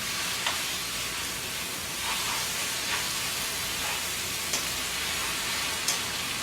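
Sweet potato glass noodles and vegetables sizzling in a hot oiled pan as they are stir-fried with soy sauce, a steady hiss with a few light clicks of stirring.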